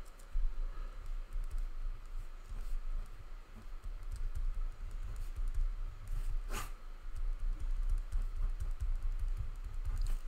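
Pen writing on paper: soft scratching and small ticks of the strokes, with one sharper click partway through, over a steady low hum.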